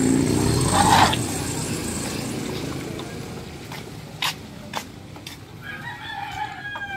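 Toyota Fortuner SUV's gasoline engine and tyres on gravel as it drives past and pulls away, the sound fading steadily. Near the end a short animal cry is heard.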